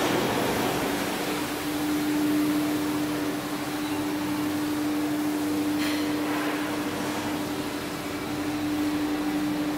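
Steady mechanical hum holding one constant pitch over a background of machine noise, with a single brief click about six seconds in.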